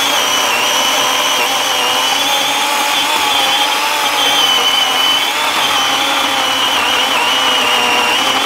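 Worx 14-inch battery chainsaw cutting through a log at full speed under heavy pressure. Its motor whine holds steady, dipping only slightly in pitch, and it keeps cutting without stalling.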